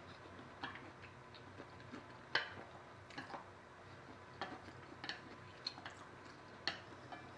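A person eating fried noodles with chopsticks: about nine sharp little clicks and mouth smacks, scattered irregularly, over a faint steady room hum.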